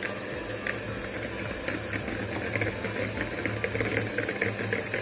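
Philips electric hand mixer running steadily, its beaters whisking eggs and milk in a glass bowl, with scattered clicks over the motor hum.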